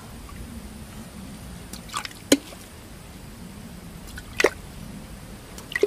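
Water plinking in a flooded mud hole: a few short drip-like plops, two close together about two seconds in, another at about four and a half seconds and one near the end, each rising quickly in pitch.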